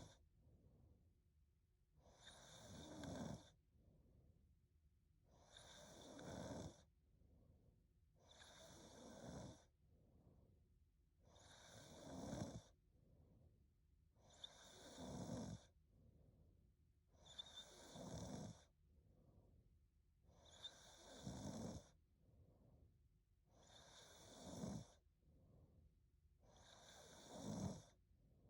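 A woman snoring faintly in her sleep, one snore about every three seconds. Each snore builds over about a second and then stops, with a softer breath out between snores.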